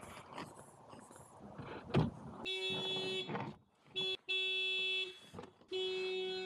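Car horn sounding in four honks: three of about a second each and one short blip between them, starting a couple of seconds in.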